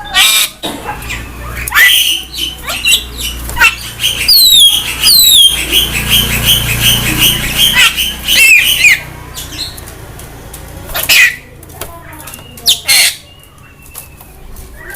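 Javan myna calling: a string of harsh squawks and clicks, with several quick falling whistles about four seconds in and a run of fast repeated chirps through the middle. These are the strange, unbird-like sounds this myna makes.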